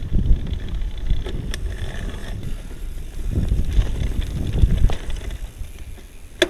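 Mountain bike on a rough off-road trail: an uneven low rumble with rattles, and one sharp click near the end.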